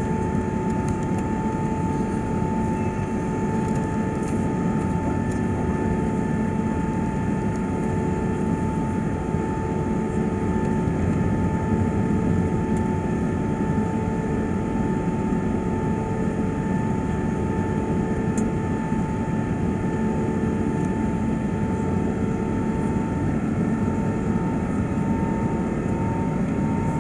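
Steady cabin noise inside an Airbus A380: a constant rush of engine and airflow noise with a thin, steady whine riding over it, unchanging throughout.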